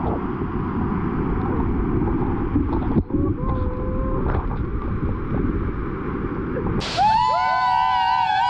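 Waterfall's rushing water: a loud, steady rush heavy in the low end, with a brief dip about three seconds in. Near the end, a song with a melody cuts in abruptly.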